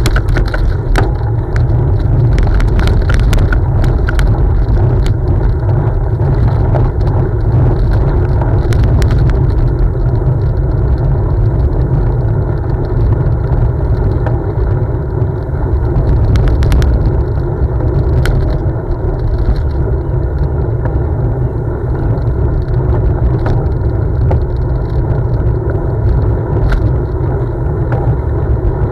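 Bicycle riding along a gravel path, heard from a bike-mounted camera: a steady loud rumble of tyres and wind on the microphone, with scattered clicks and rattles from stones and the bike, thickest in the first few seconds.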